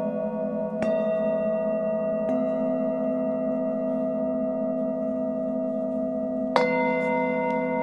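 Several singing bowls ringing together in long overlapping tones. Fresh strikes come about one, two and six and a half seconds in, the last the loudest. The low tones pulse with a slow wobble for the first couple of seconds.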